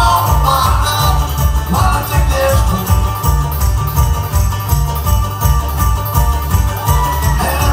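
Bluegrass string band playing live, heard from the audience: a cello plucked as a bass line drives a steady beat of about two pulses a second under strummed acoustic guitar, mandolin and banjo.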